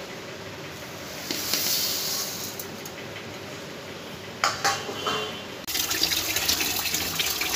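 Water running into a steel pot of dry lentils and whole grains, then from about halfway through a hand swishing and rubbing the grains in the water to wash them before soaking, with a couple of knocks against the pot just before the swishing starts.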